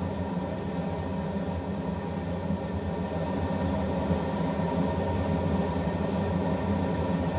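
Steady low hum and rumble of an induction cooktop running under a stockpot of simmering soup.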